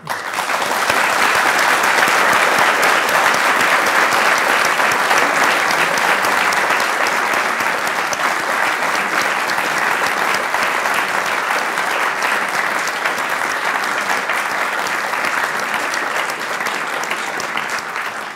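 Audience applauding: a long round of clapping that starts at once, is fullest in the first few seconds and slowly tapers off toward the end.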